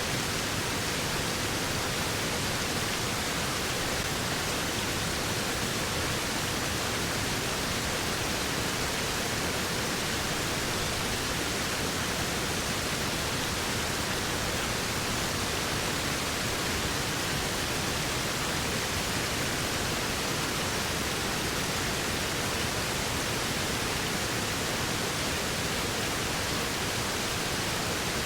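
Waterfall: a steady, unbroken rush of falling water, even and hissy, with no single splashes standing out.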